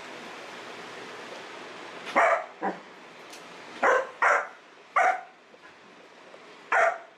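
Six-month-old German Shepherd puppy barking: about six short, sharp barks, one of them softer, starting about two seconds in, over a steady background hiss.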